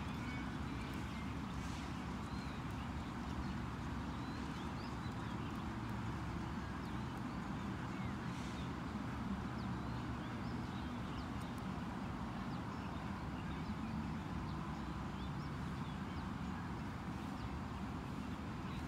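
Steady outdoor background noise, low and even, with faint hoofbeats of horses moving on grass and scattered faint high chirps.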